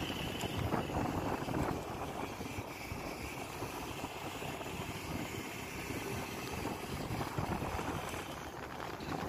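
Steady rushing wind and road noise from a moving vehicle, with wind buffeting the microphone.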